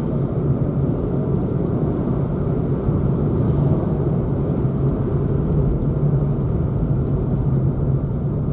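Steady engine and road rumble of a car driving.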